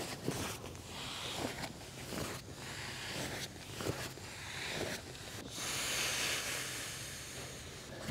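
Blackwolf Hexatherm 3D self-inflating camping mattress being rolled up toward its open deflate valve: air hisses out in several surges as the mat is squeezed, mixed with fabric rustling, the longest rush about six seconds in.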